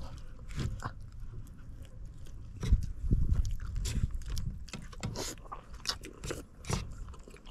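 Close-up eating sounds: chewing, with irregular clicks and scrapes of a spoon and fork on a plastic plate, the sharpest click a little under three seconds in.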